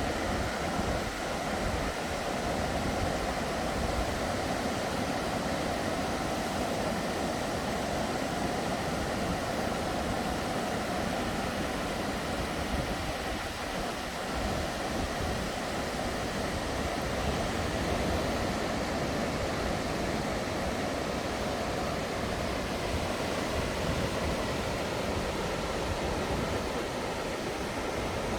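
Ocean surf on a beach, a steady, even rush with a low rumble and no separate breaks standing out.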